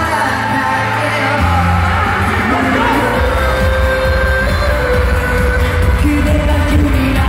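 K-pop song with singing over an amplified backing track, played live in an arena and recorded from the audience. The deep bass drops out briefly at the start and comes back in about a second and a half later.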